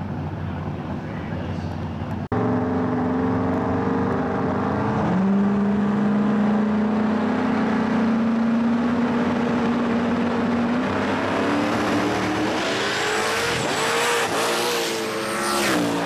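Twin-turbo V8 drag racing engine, a Mustang's, running at the start line: it first sits on a steady held note, then revs climb as the car launches, with the pitch rising and dropping through the gears. The sound is abruptly cut about two seconds in.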